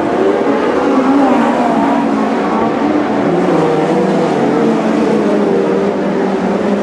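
Winged Lightning Sprint cars racing on a dirt speedway, several engines running hard at once, their pitch rising and falling as the cars throttle through the turns and pass.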